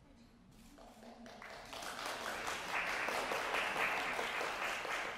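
Audience applauding, swelling over the first couple of seconds into steady clapping and easing off near the end.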